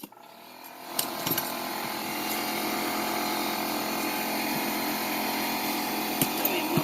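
Air compressor motor starting up and running steadily, with a steady hum. A few faint clicks sound over it.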